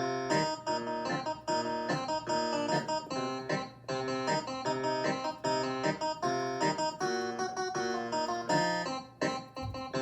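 Roland FP-30 digital piano playing a plucked, guitar-like preset voice. It plays a repeating rhythmic pattern of short notes and chords, like a funk guitar figure.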